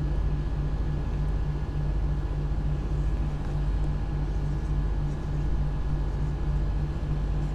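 A steady low machine hum with a faint, regular throb.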